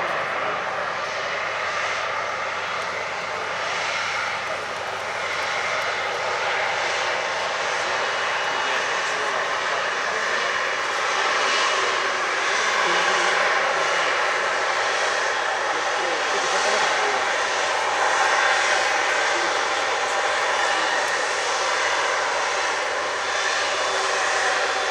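Airliner jet engines running in a steady, continuous roar, growing a little louder in the second half.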